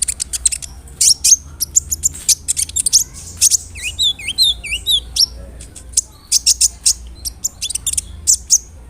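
Kolibri ninja, a sunbird, singing vigorously: a rapid string of sharp, high chips and short trills, with a run of swooping notes about four seconds in.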